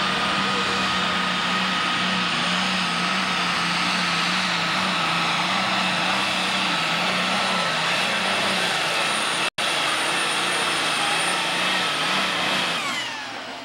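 Super stock pulling tractor's turbocharged engine running flat out under full load as it drags the weight sled, with a steady high whine over the engine note. A split-second dropout about two-thirds through, and near the end the engine winds down, its pitch falling.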